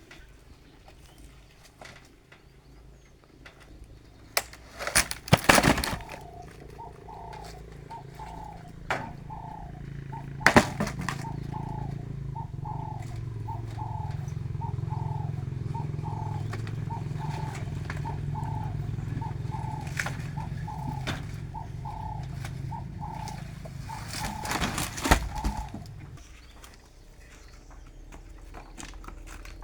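Firewood logs knocking loudly as they are dropped and stacked, a few separate blows, while a bird calls one short note over and over, about two a second, for most of the time.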